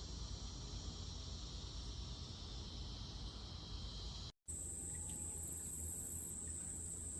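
Outdoor insects, such as crickets or cicadas, chirring steadily in a high pitch. About four seconds in the sound cuts out for a moment and comes back as a thinner, higher-pitched steady drone.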